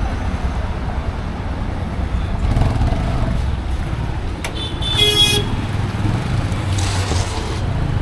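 Steady low road-traffic rumble, with a short vehicle horn honk about five seconds in.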